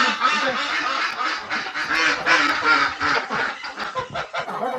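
A flock of domestic ducks and geese calling together: a steady run of overlapping quacks and honks.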